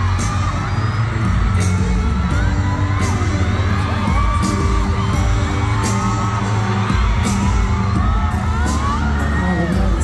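Live pop music over an arena sound system: a heavy bass beat with regular drum hits and a singer's voice, with fans cheering and screaming along.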